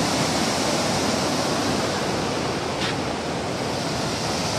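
Muddy canal water rushing and churning through the gates of a brick canal regulator: a steady, loud rush of turbulent water.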